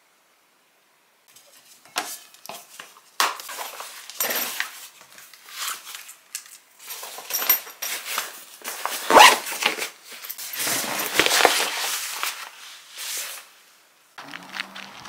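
Irregular rustling, clicks and light clatter of belongings being handled and packed into a bag. About a second before the end it switches to outdoor background noise.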